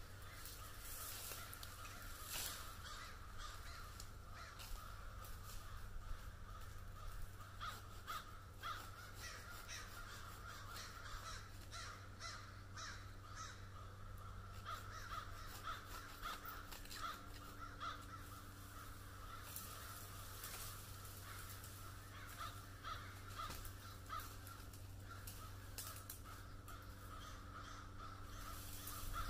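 Crows cawing over and over, with scattered crackles and rustles of twigs and branches.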